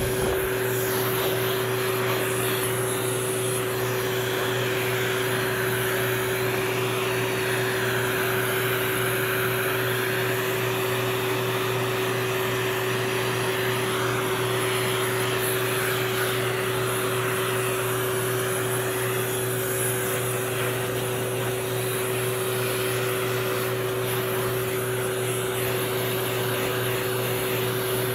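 Pet grooming dryer blowing: a steady motor hum with a held whine, and air rushing from the hose nozzle onto a damp dog's coat, the rush shifting a little as the nozzle moves.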